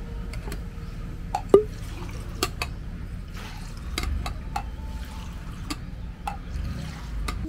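Metal spoon clinking and scraping against an enamel mug as Thai coffee is stirred, with a sharp clink about one and a half seconds in, and coffee being poured from one enamel mug into another.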